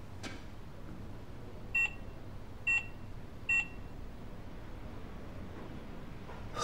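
Electronic keypad door lock beeping as code digits are pressed: three short high beeps, a little under a second apart.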